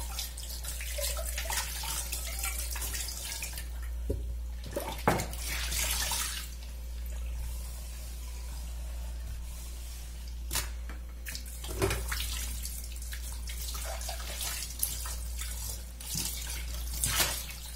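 Tap water running into a kitchen sink as metal pots are rinsed under it, with a few sharp clanks of the pots against the sink. The flow is a bit softer for a few seconds in the middle.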